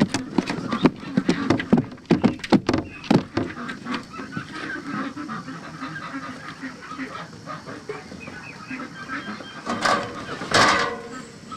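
White domestic ducks shuffling in a wooden coop: a flurry of sharp knocks and taps in the first few seconds, then soft low calls. A loud honking quack comes a little after ten seconds in.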